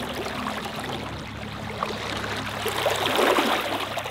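Water trickling and churning around a small kids' boat moving through the water, steady and a little louder near the end, over a faint steady low hum.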